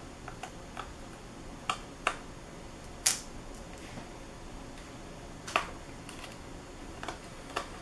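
Small, sharp clicks and taps of a small Phillips screwdriver working tiny screws out of a Samsung Series 9 ultrabook's bottom case: a handful of separate clicks at uneven gaps, the loudest about three seconds in.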